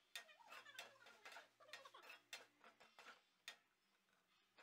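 Steel spoon clicking and scraping against a stainless-steel kadai as diced potatoes are stirred: faint, irregular clicks about every half second, dying away in the last second.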